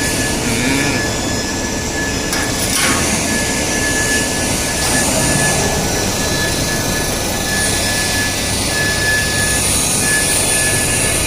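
Pipe swaging machine running: a steady mechanical noise with a thin, high, constant whine.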